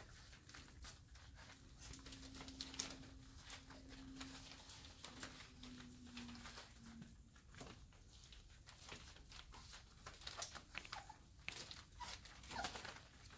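Four-and-a-half-week-old Airedale Terrier puppies playing on a blanket: faint, scattered scratching, padding and rustling of paws and cloth, with a faint low steady hum for a few seconds early on.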